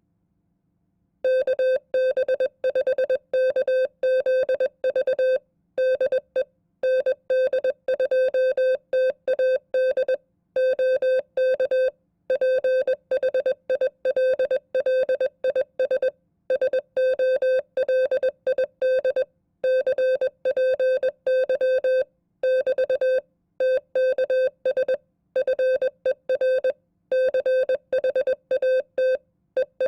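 Morse code sent at 20 words per minute as a keyed beep of one steady pitch: runs of dots and dashes with short gaps between words, starting about a second in.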